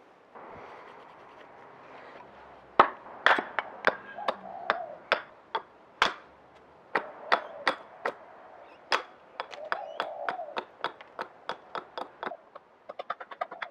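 An axe chopping a green-wood spoon blank to rough out its shape: a run of sharp, irregular blows, about two to three a second, some with a short ring. Near the end a quicker run of lighter taps starts.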